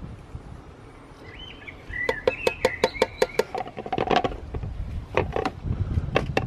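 A bird chirping outside, with quick runs of short, sharp repeated notes, several a second.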